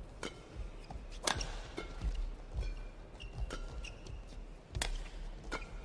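Badminton racket strikes on a shuttlecock in a fast singles rally: sharp hits about a second apart, two of them louder smashes. Court shoes squeak briefly on the floor between the hits.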